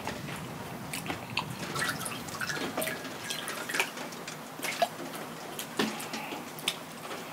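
Rain dripping steadily outside, heard as a faint patter of scattered drips. Partway through, makgeolli is poured from a bottle into a ceramic bowl.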